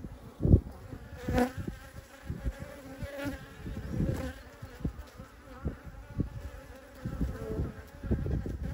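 Honey bees buzzing close by in a steady hum, from a swarm clustered on a queen clip. Irregular low rumbles on the microphone come over it, the loudest about half a second in.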